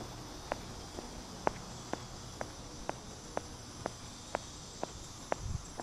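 Footsteps of shoes on stone paving, about two steps a second, over a steady high drone of cicadas.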